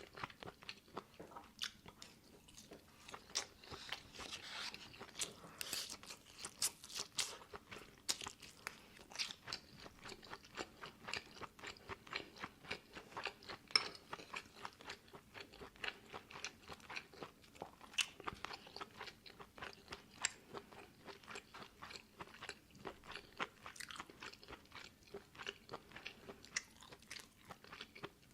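A person eating close to the microphone: steady chewing with many short, crisp crunches and clicks.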